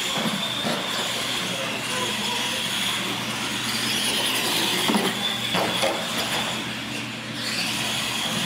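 Radio-controlled monster trucks racing on a concrete floor: a steady whine from their motors and gears with tyre noise.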